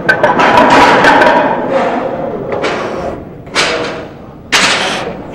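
A few heavy thumps from gym weights being worked during a set of chest-supported rows. The first comes right at the start, then three more about a second apart near the end, each fading quickly.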